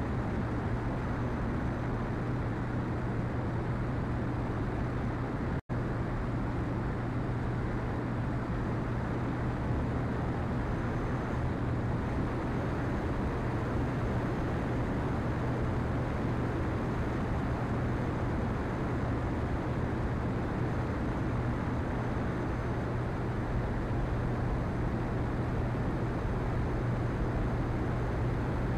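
Cessna Skylane's engine and propeller giving a steady drone in cruise flight, with wind rushing over the externally mounted microphone. The sound drops out for an instant about six seconds in.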